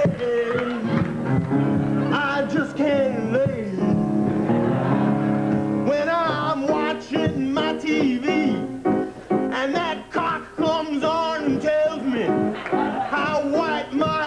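Rock-and-roll song: a man's lead vocal over guitar and a band with a steady beat.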